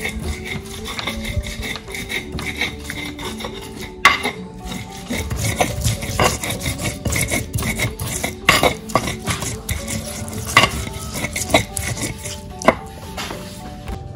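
Stone pestle grinding and scraping a spice paste of shallots and spices in a stone mortar (cobek), with irregular scrapes and several sharp stone-on-stone knocks. Soft background music plays underneath.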